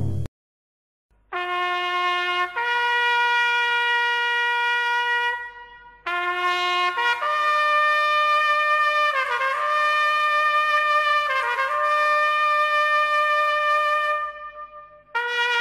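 Background music: a solo trumpet playing a slow melody of long held notes, in phrases separated by short breaks.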